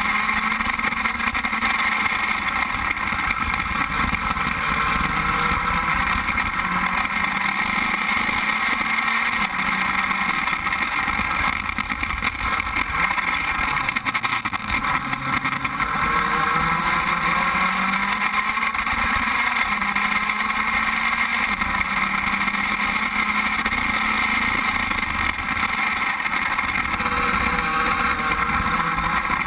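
FS2.0 open-wheel race car's engine heard onboard at speed while lapping a circuit. Its pitch repeatedly climbs and drops as the car accelerates and slows through the gears.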